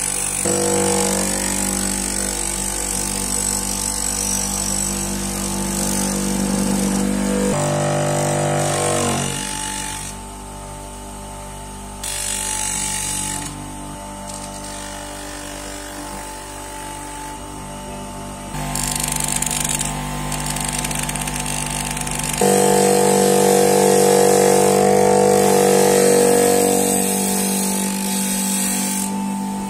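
Crown bench grinder running with a steady motor hum, its abrasive wheel grinding rust and scale off steel pliers. The loudness and tone shift abruptly several times.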